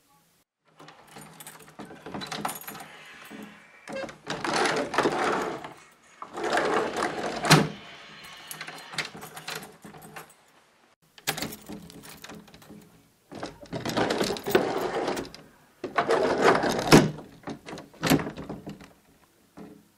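A door being opened and closed over and over: stretches of scraping and creaking as it swings, with a few sharp knocks as it shuts, the loudest about seven and a half and seventeen seconds in.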